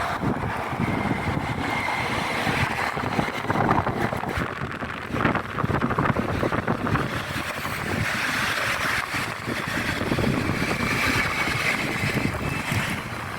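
A train running past close by: a steady rumble with wind buffeting the microphone. A thin high tone rises briefly twice, about two seconds in and again near the end.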